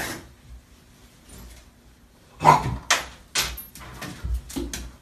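Golden retriever puppy giving short yips and cries in the second half, with knocks of its paws against the side of a bathtub.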